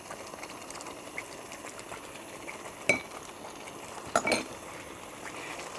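A metal spoon clinking against a pan a few times, about three and four seconds in, while butter is stirred into a boiling coconut-milk masala, over a faint steady simmer.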